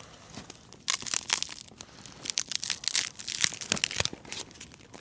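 Dry sticks crackling and snapping on a small fire just started from spruce pitch and wood shavings: a dense run of irregular sharp crackles, a few of them loud.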